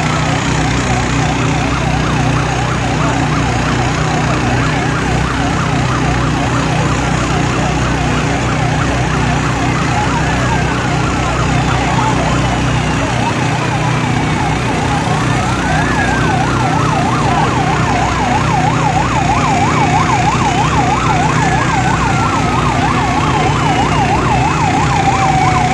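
Fire truck sirens sounding together: a fast warbling yelp runs without pause, while a wail rises quickly and falls slowly about every five seconds over it, with a steady low engine hum underneath.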